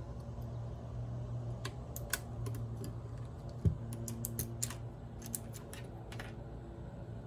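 Irregular, scattered clicks of computer keyboard keys being pressed one at a time, with one dull low thump about three and a half seconds in, over a steady low hum.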